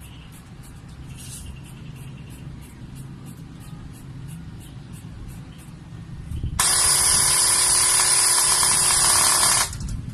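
Airsoft electric gun with a high-power motor and 13:1 high-speed gears cycling on full auto: one burst of about three seconds, a steady, loud buzz that starts suddenly two-thirds of the way in and cuts off sharply.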